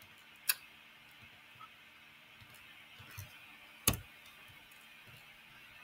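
Two sharp computer mouse clicks, about three and a half seconds apart, with a few fainter ticks over low room hiss.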